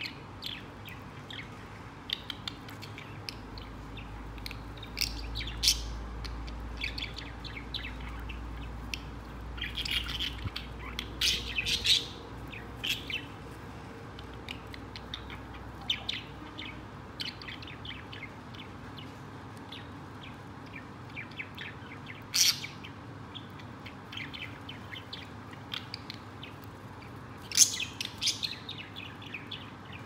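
Budgerigars chirping in short, scattered calls, with louder bursts of chirps about ten to twelve, twenty-two and twenty-seven seconds in.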